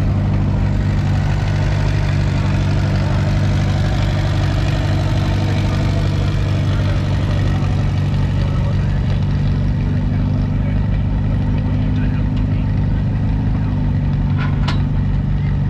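Tractor engine idling steadily, with a couple of sharp clanks near the end.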